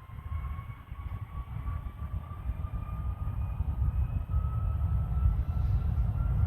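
Airbus Beluga XL's twin Rolls-Royce Trent 700 turbofans spooling up to takeoff thrust: a deep rumble that grows steadily louder under a slowly rising whine as the takeoff roll begins.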